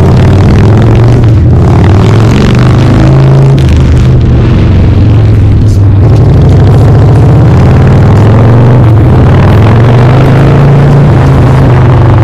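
Harley-Davidson Night Train V-twin running loud through Vance & Hines Big Radius pipes with the baffles removed, its pitch rising and falling as the throttle opens and closes on a ride.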